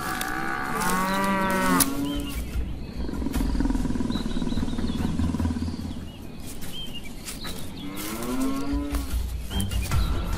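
Cape buffalo bellowing: a drawn-out, wavering call lasting about two seconds at the start and a shorter call about eight seconds in, with a rough, pulsing growl between them.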